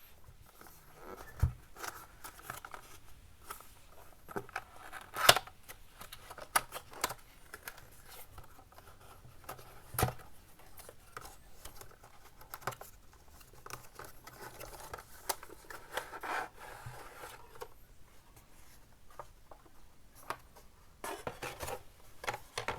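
A flashlight's retail box being opened by hand: scratching and rustling of the packaging with scattered sharp clicks and knocks. The loudest click comes about five seconds in and another about ten seconds in.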